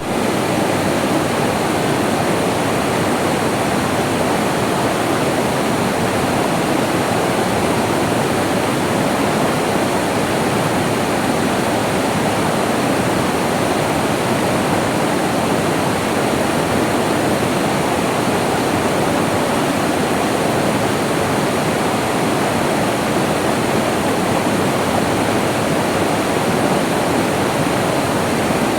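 Flowing water rushing steadily and without a break.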